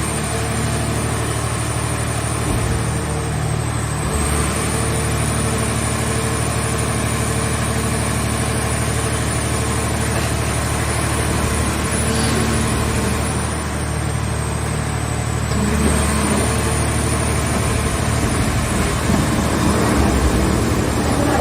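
Car shell scrap baler's engine and hydraulic power unit running steadily, with a high whine that dips in pitch twice.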